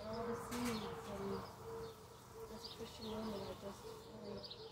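Doves cooing in short repeated low notes and small birds chirping, with the hiss of a garden hose spray nozzle in the first second or so.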